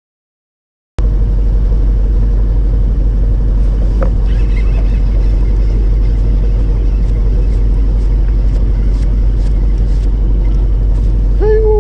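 Fishing boat's engine running steadily, a loud low rumble with a steady hum, starting about a second in after silence.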